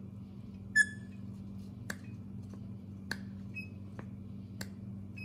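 Chainsaw primer bulb being squeezed by hand to test whether it draws suction: a short squeak about a second in, then four sharp clicks spaced about a second apart, over a steady low hum.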